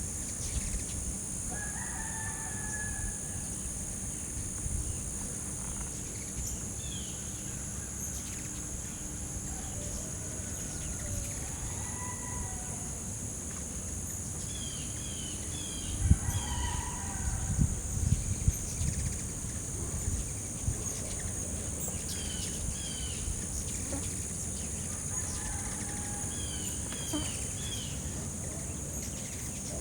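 Insects keep up a steady high-pitched drone while small birds give short chirps. A rooster crows several times, each crow about a second long. A few low thumps come about halfway through.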